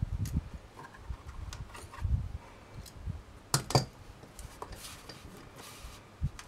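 Handling noise from metal jewellery pliers and wire on a work surface: soft bumps and small clicks while the wire is bent around stepped pliers, then two sharp clicks about three and a half seconds in as the pliers are put down, and a brief rubbing of wire.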